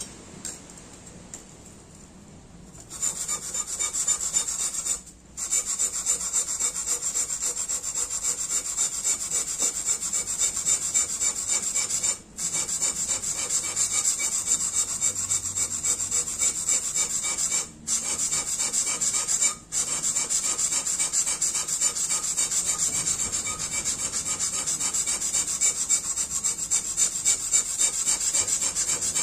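A steel tanto blade rubbed back and forth on a wet whetstone in quick, even strokes, a steady rasping scrape that starts about three seconds in and stops briefly a few times. The tip is being ground on the stone to shape the blade's yokote and kissaki.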